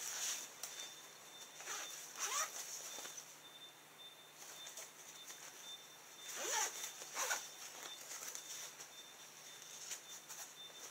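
Zippers on the pockets of a Crossfactor fishing vest being pulled open and shut in a few quick strokes, near the start, around two seconds in and twice more at six to seven seconds, with fabric handling between.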